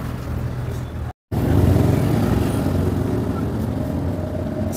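Steady low hum of an engine running, broken by a brief dropout to silence about a second in.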